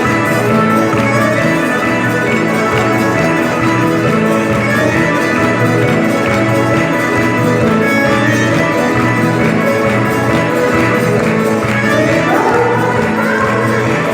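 Music with fiddle-like strings and guitar playing steadily, with a rising note near the end.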